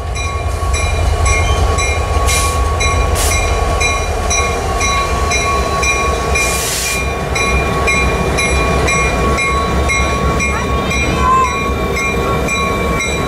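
Two Norfolk Southern diesel-electric freight locomotives, an EMD SD60M followed by a GE C44-9W, passing close by at the head of a freight train, their engines giving a loud, steady low rumble. A steady high ringing tone that pulses regularly runs under it, with a few short hisses about two, three and six and a half seconds in.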